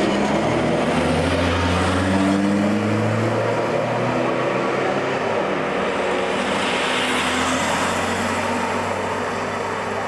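W class tram pulling away, its traction motors whining and rising in pitch as it speeds up over the first few seconds, mixed with the noise of passing road traffic. A car goes by with a swell of tyre noise about seven seconds in.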